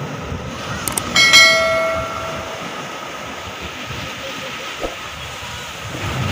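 Steady wash of sea waves breaking and foaming over rocks. About a second in come two short clicks and a brief ringing chime that fades away, the sound effect of an overlaid subscribe-button animation.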